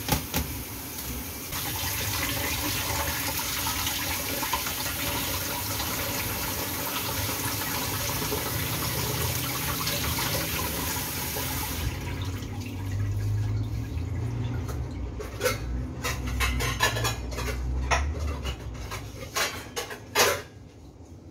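Kitchen tap running full into a stainless steel sink as small mushrooms are rinsed in a plastic colander. The water stops about twelve seconds in, followed by knocks and rattles of the colander being handled and set down in the sink.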